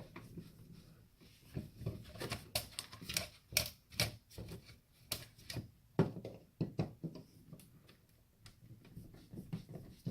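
Irregular sharp clicks and small knocks from a computer CD drive being taken apart by hand, its steel case parts and screws handled and set down.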